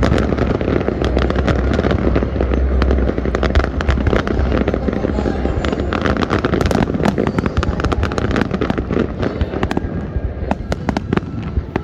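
Fireworks display in full barrage: dense rapid crackling and bangs. A heavy low rumble runs under it for the first few seconds.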